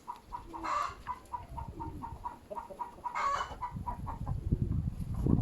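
Birds calling: a fast, even run of short calls, about five a second, with three louder, harsher calls spread through. Wind rumbles on the microphone in the last second or so.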